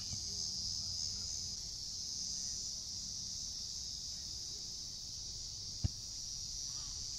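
Steady high-pitched insect chorus, with one dull thump of a soccer ball being kicked near the end.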